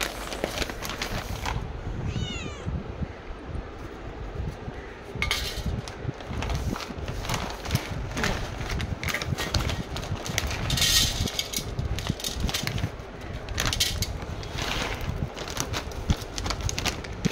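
A cat gives a short meow early on. A plastic dry-cat-food bag then crinkles and dry kibble rattles into a steel bowl, with a dense patch of rattling about ten seconds in.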